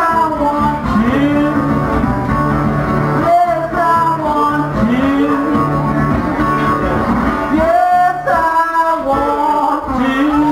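National metal-bodied resonator guitar played with a blues picking pattern, with male voices singing along in a live acoustic duo.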